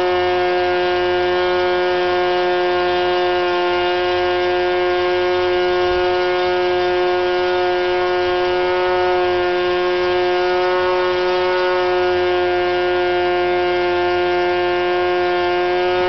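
Norvel .074 two-stroke glow model engine, its cooling fins cut almost entirely away, running flat out with a Cox 8x4 propeller: a loud, steady high-pitched whine near its top end of about 11,000 rpm. The pitch creeps slightly higher near the end.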